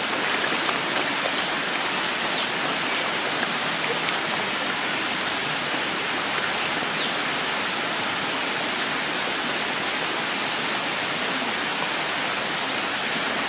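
Steady rushing and splashing of water as a crowd of koi churns the pond surface.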